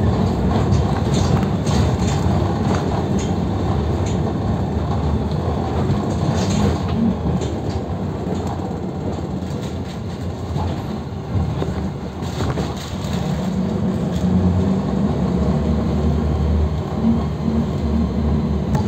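Inside a moving PAZ 320405-04 city bus: the engine's steady low rumble with rattles and knocks from the body and fittings. It eases off a little past halfway, then picks up again.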